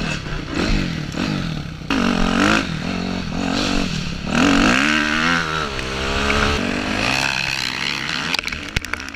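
Kawasaki dirt bike engine running under the rider, revving up and falling back several times as it pulls away and accelerates along a dirt trail, with a few sharp knocks near the end.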